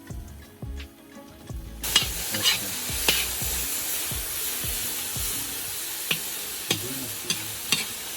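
Food frying in hot oil in a pan: a loud, steady sizzle that starts suddenly about two seconds in, with occasional clicks and scrapes of a utensil stirring. Faint background music comes before the sizzle.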